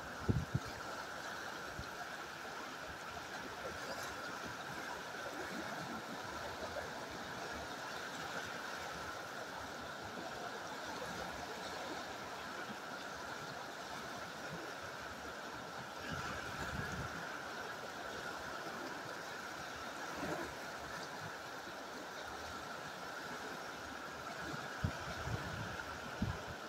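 Fast river water rushing steadily over rocks, with a few soft low thumps around seventeen seconds and again near the end.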